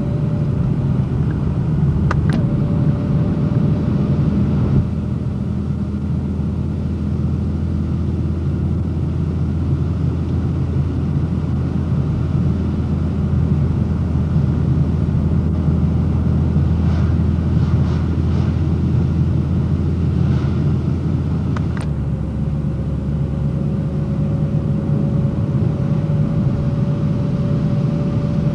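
Car driving along at road speed, heard from inside the cabin: a steady low rumble of engine and road noise. Two sharp clicks come about two seconds in and again about 22 seconds in, where the rumble's deepest part shifts.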